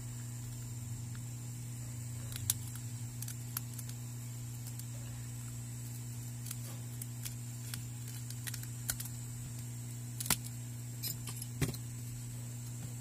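Scattered small clicks and ticks of a thin metal pry pick being worked under the edge of a cracked Samsung Galaxy A10 display to prise the glass loose, a few sharper ones about two and a half seconds in and again near the end. A steady electrical hum runs beneath.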